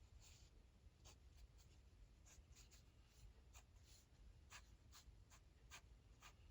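Faint drawing sounds: a stylus tip ticking and tapping irregularly on a tablet's glass screen, with a few short brushing strokes.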